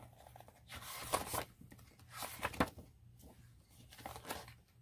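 Pages of a thick photobook being turned by hand: paper rustling and sliding over in about three short bursts.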